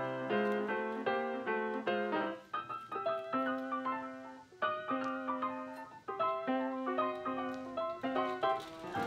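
Background piano music, a melody of single notes over lower chords.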